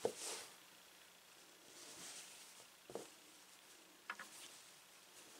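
Quiet handling of craft materials: a soft thump at the start, a light rustle, then a short knock about three seconds in and a couple of small clicks a second later.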